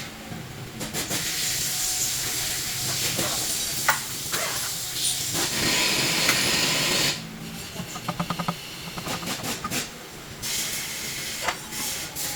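Loud, steady pressurised hiss in two long spells, with a short quieter gap between them that holds a quick run of clicks.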